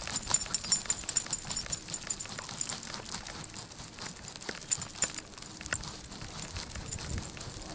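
Irregular small clicks and rustling from a beagle walking on pavement with an action camera strapped to her harness. The mount knocks against the harness and her paws tap the ground. The clicks are denser in the first few seconds.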